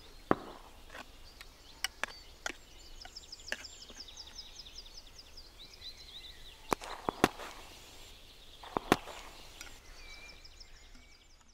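Sharp metallic clicks and knocks of a spoon against a metal mess tin, a few at a time, the loudest near the start and about two-thirds of the way through. Birds chirp in a fast run of high notes behind.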